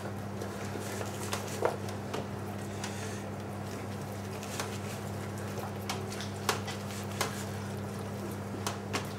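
Scattered wet squelches, small clicks and soft knocks of hands pressing raw chicken legs down into a stainless-steel pan of wine marinade and chopped vegetables, over a steady low hum.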